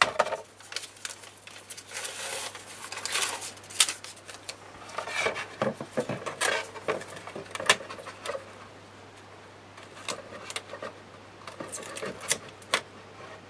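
Paper rustling and crinkling as a paper strip is folded and pressed down over the edge of a chipboard cover by hand, with a few short sharp clicks and taps among the rustle.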